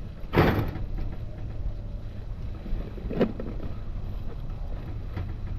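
Wind buffeting the microphone outdoors, a steady low rumble, with two louder gusts or bumps about half a second and three seconds in.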